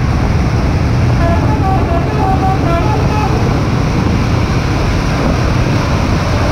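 Steady low engine rumble and road noise of a moving vehicle on a wet road, with a few short faint tones over it.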